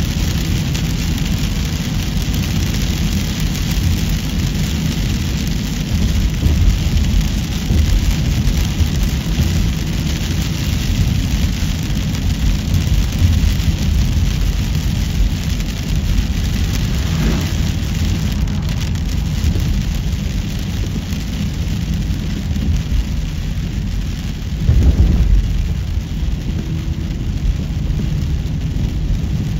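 A car driving on the highway: steady road and wind noise with a deep rumble, swelling briefly once about 25 seconds in.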